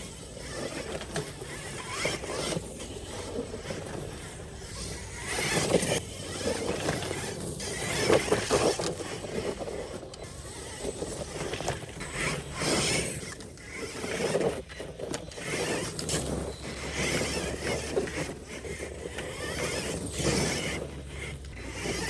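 1/10-scale RC4WD Miller Motorsports Pro Rock Racer RC truck driving fast: its motor winds up and eases off with the throttle again and again, over a steady hiss of tyre and ground noise.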